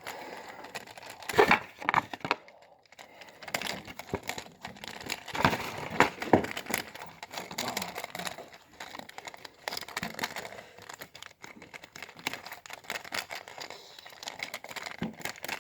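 Toy packaging being handled and opened: irregular crinkling with scattered clicks and knocks, a few louder ones in the first half.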